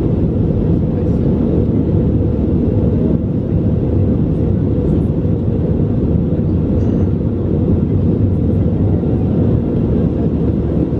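Steady, deep roar of an Airbus A321 airliner's engines and airflow heard inside the cabin during the climb.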